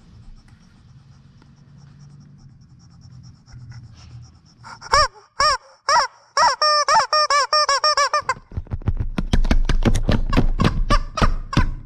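Rubber chickens squeezed by hand: after a few seconds of low background hum come several separate squawks, then a warbling run, then a fast string of short squeaks, about five a second.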